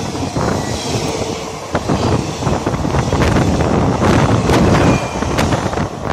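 Passenger coaches of an express train passing close by at speed, their wheels clattering and clicking sharply over the rail joints. The sound begins to fade near the end as the last coach goes by.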